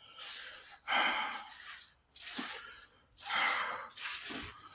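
A person breathing heavily close to the microphone: about five noisy breaths in and out, each lasting roughly half a second to a second.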